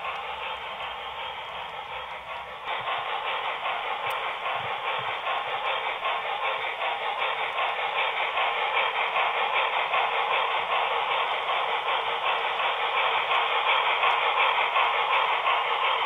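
HO-scale model freight train rolling past on its track: a steady rattle of small metal wheels on the rails. It gets louder about three seconds in and keeps building slightly.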